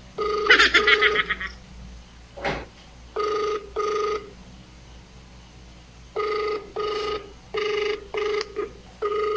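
Ringback tone of an outgoing mobile phone call on speaker: a steady buzzing tone in short double rings, repeating every few seconds.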